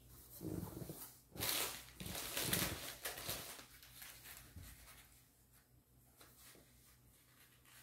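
Paper and plastic packaging rustling and crinkling as it is handled, strongest for about two seconds in the first half, then fainter.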